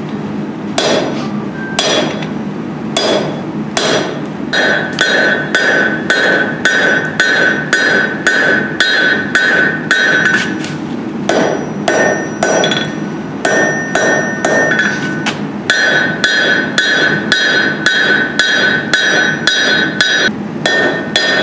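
Blacksmith's hand hammer striking a red-hot steel bar on an anvil, steady blows about two a second, each giving a ringing clang. The hot steel is being forged into one arm of a pair of scrolling pliers.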